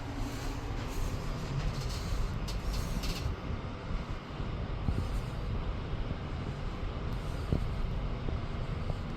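1993 Goldstar traction elevator car travelling between floors, heard inside the cab as a steady low rumble. A higher hiss stops about three seconds in, and a few faint clicks come later.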